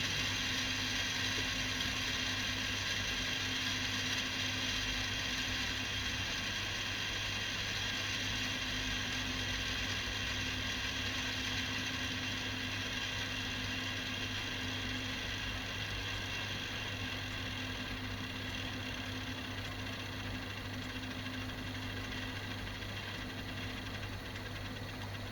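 Victor BR-6400 VHS deck winding tape at high speed in fast-forward or rewind: a steady whirring with a rough rasping noise, which the owner traces to the tape's guide roller.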